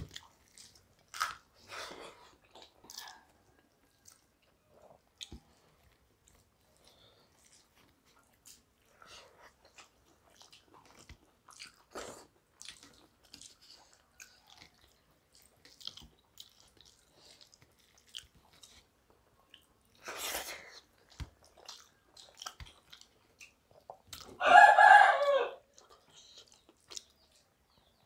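Hands mixing rice and curry on steel plates and mouths chewing, soft scattered clicks and squelches. Near the end a loud pitched cry lasting about a second rises over the eating sounds.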